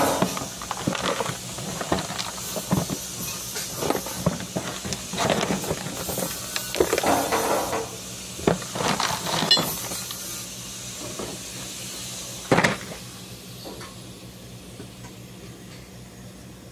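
Irregular knocks, clanks and scraping from work going on in a repair shop, over a steady low hum. One sharp knock comes about twelve seconds in, after which only the hum remains.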